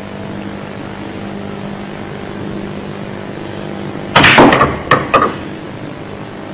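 Pool shot: a sharp clack about four seconds in as the cue strikes the cue ball and balls collide, then two lighter clicks just after. A steady low hum runs underneath.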